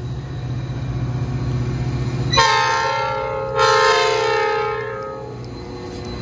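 Diesel locomotive of the Panama Canal Railway passenger train approaching with its engine rumbling steadily, sounding its air horn: a chord of several tones in two blasts about two and a half seconds in, the second louder and longer.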